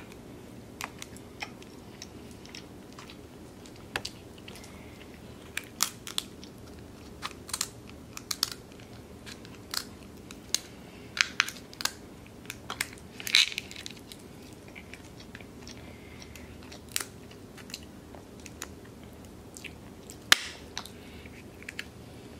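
Close-up eating sounds: chewing, with irregular sharp cracks and clicks as crab legs and shells are broken open and picked at.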